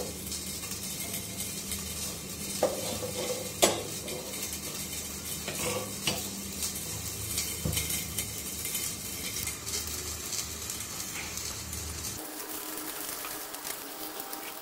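Gas stove burner hissing steadily as a lump of charcoal is heated in its flame, with several light clicks and taps of the steel tongs holding it.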